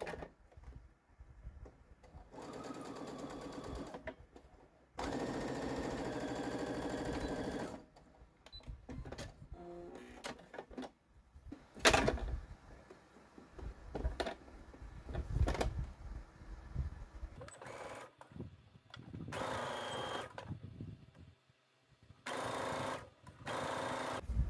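Brother Innovis A-150 computerized sewing machine stitching in several short runs of a few seconds each. Between runs there is fabric handling noise, with one sharp knock near the middle.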